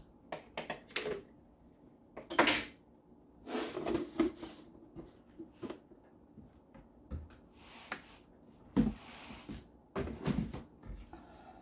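Dishes and utensils being handled, giving irregular clinks and knocks. The loudest comes about two and a half seconds in, with another strong knock near nine seconds.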